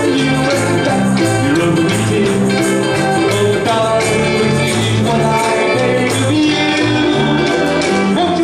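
A live band plays an up-tempo rock-and-roll song on electric guitar and ukuleles over a walking bass line, with a man singing at the microphone.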